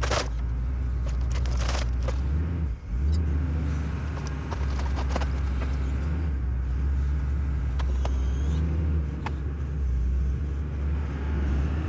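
An engine running steadily with a low rumble, with a few sharp clicks and knocks over it.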